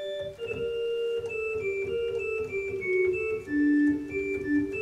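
Viscount Sonus 60 Physis digital organ playing a short passage of moving notes in several parts on a choir-manual flute registration with mutation stops up to the larigot, giving a bright, thin, tinkling colour.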